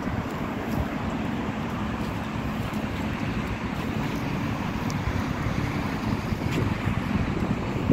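Wind buffeting the phone's microphone, with a steady rumble of traffic beneath it.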